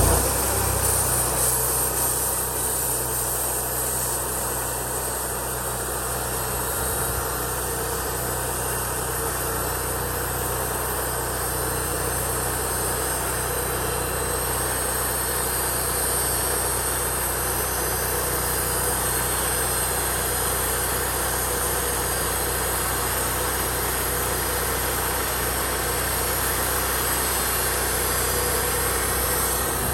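Band sawmill running steadily, its engine giving a constant drone under a high hiss, while it saws boards in pattern mode.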